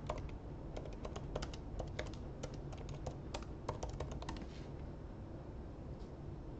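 Typing on a computer keyboard: a quick, irregular run of key clicks that stops about two-thirds of the way through, leaving a steady low hum.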